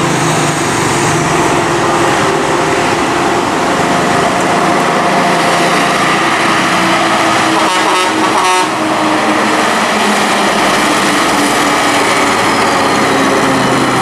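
Mitsubishi Fuso heavy truck's diesel engine running steadily under load as it hauls a tracked excavator up a steep road. A motorcycle passes close by about eight seconds in.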